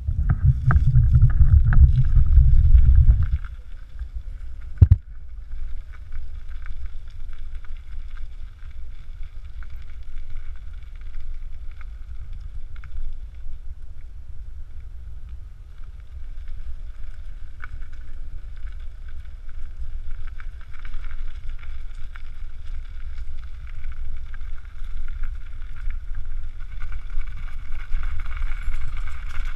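Electric cargo bike on the move, heard from a camera mounted on the bike: steady low rumble of wind on the microphone and tyre noise, with a faint steady higher whine. The wind buffeting is heavy for the first three seconds, and there is one sharp knock about five seconds in.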